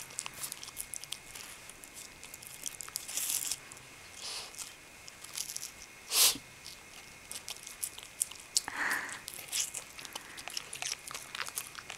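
American Eskimo dog biting and chewing a slice of watermelon rind: irregular crunches and wet mouth clicks, with one louder crunch about six seconds in.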